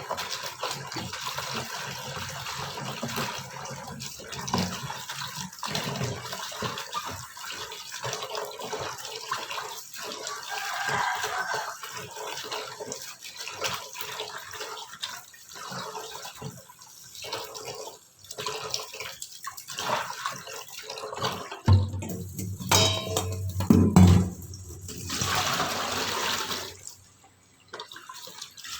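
Pandan leaves being washed by hand in water, with steady splashing and running water and the clatter of handling in a sink. A few louder knocks come later on, followed by a stronger rush of water.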